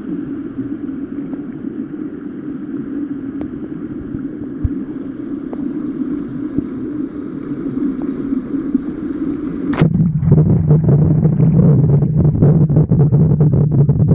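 Shallow river rapids rushing, heard with the camera at the water's surface. About ten seconds in the microphone goes under water and the sound turns abruptly to a muffled low rumble with faint crackling.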